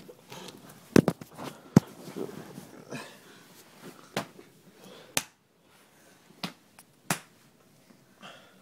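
A series of sharp knocks and clicks. The two loudest come about one and two seconds in, and fainter ones follow every second or so.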